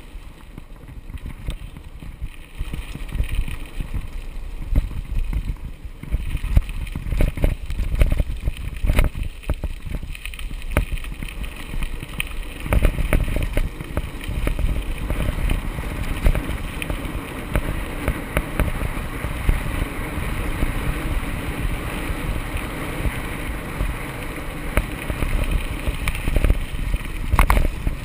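Riding a mountain bike on a gravel track: wind buffeting the microphone over a low rumble of tyres on gravel, with frequent small knocks and rattles from the bike. The noise grows louder and busier about a dozen seconds in.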